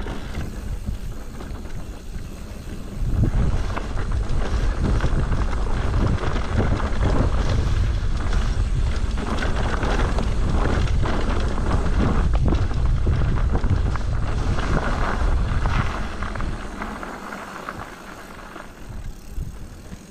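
Bicycle riding down a rough, stony mountain trail: wind buffeting the microphone, with tyres crunching and the bike rattling over rocks. It gets loud about three seconds in and eases off a few seconds before the end.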